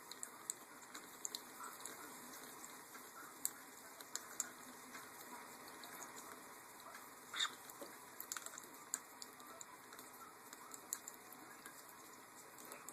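Light, irregular splashing and pattering of water as a green-cheeked conure bathes in water held in a toy boat.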